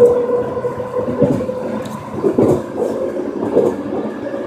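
Running noise inside a moving SkyTrain car, a driverless linear-induction-motor train, as it travels along the elevated track. A steady hum sits under the rolling rumble.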